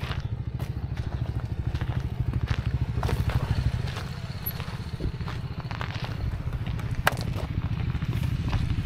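Triumph 400's single-cylinder motorcycle engine running steadily under way, with a low, even note. The engine gets a little louder about three seconds in and eases back about a second later, and a few sharp clicks come through, the clearest near the seven-second mark.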